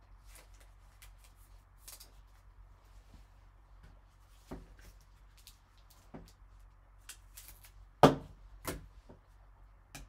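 Trading cards in plastic sleeves and hard holders being handled by gloved hands: soft rustles and scattered light clicks, with a sharper tap about eight seconds in and another just after.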